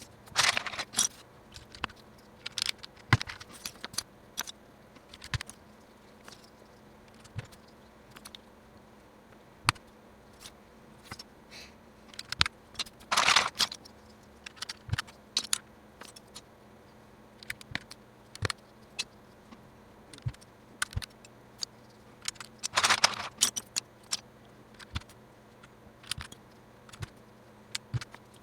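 Plastic keycaps clicking and clattering as they are handled and pressed onto the keyboard's switches: many short, irregular clicks, with three longer clatters, near the start, about halfway and about four-fifths of the way through.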